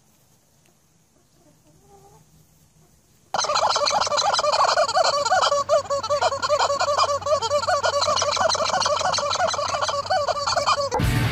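Squeaky rubber chicken toy squawking over and over in rapid, loud honks as a horse bites and squeezes it, starting suddenly about three seconds in after near silence. Music cuts in at the very end.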